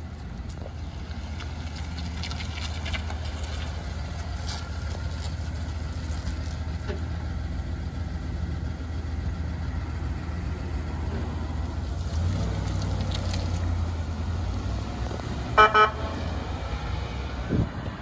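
Two short honks of a Chevrolet Tahoe fire department SUV's horn, over a steady low engine rumble that grows louder partway through as the vehicle drives off. A brief rising sound follows shortly before the end.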